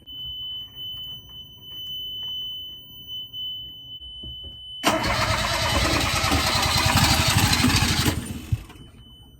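Yanmar 3GM30F three-cylinder marine diesel being started. The engine panel's alarm buzzer sounds a steady high beep. About five seconds in, the starter cranks the engine with a loud, rhythmic churn for about three seconds, then stops.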